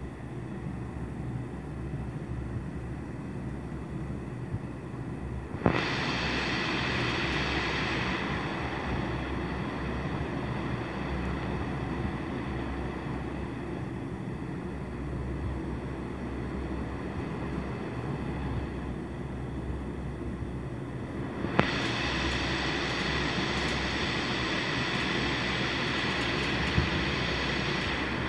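Steady machine hum, with a sharp click about six seconds in and again about twenty-two seconds in, each followed by a louder whirring hiss.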